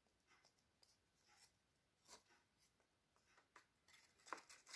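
Near silence, broken by a few faint taps and rustles of a paper cut-out figure being moved across a cardboard dollhouse, the clearest tap near the end.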